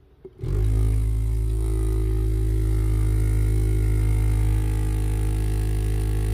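Small electric vortex tube shaker buzzing steadily as a bottle of eyelash-extension glue is pressed down into it, mixing the glue's ingredients. The buzz starts about half a second in and holds an even low hum.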